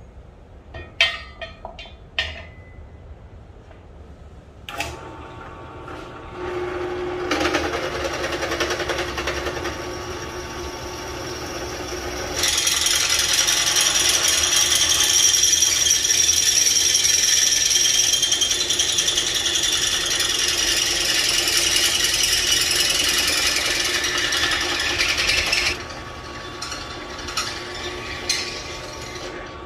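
Benchtop drill press running, its bit boring into square steel tubing. The motor starts about five seconds in, and from about twelve seconds the cut becomes a loud, high-pitched squeal that stops about four seconds before the end. Metal clicks and knocks from handling the tube come before and after.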